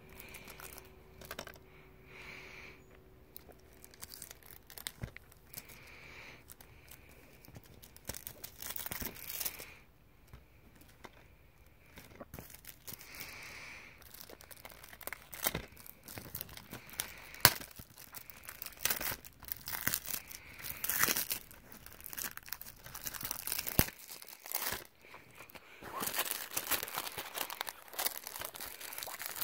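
Plastic shrink-wrap being torn and crinkled off a DVD case in irregular rustling bursts, sparse at first and busier later, mixed with sharp clicks from handling the plastic case. The loudest of these is one click about halfway through.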